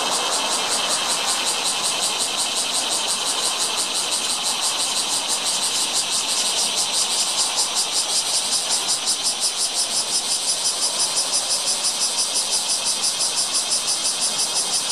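Bear cicada (kumazemi, Cryptotympana facialis) singing: a loud, high, rapidly pulsing buzz, its pulses growing more distinct about halfway through.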